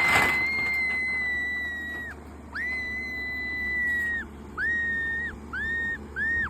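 High, steady whistle-like tone held for about two seconds, then repeated as four shorter notes at the same pitch, each shorter than the last, each with a quick upward glide at its start and a drop at its end.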